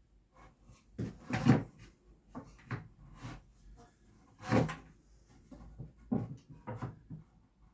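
Irregular knocks and clatter of wooden parts and tools being handled on a workbench, with two louder thumps, one about one and a half seconds in and one about four and a half seconds in.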